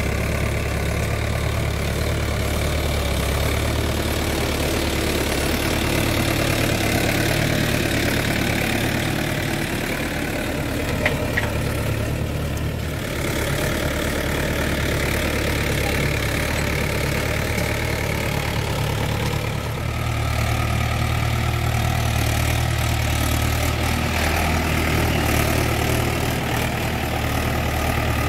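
Swaraj 843 XM tractor's three-cylinder diesel engine running steadily under load while pulling a tined cultivator through soil.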